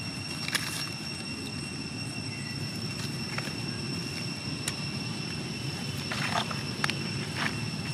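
Outdoor background: a steady high-pitched whine at two pitches over a low rumble, with a few short rustles or clicks scattered through, more of them near the end.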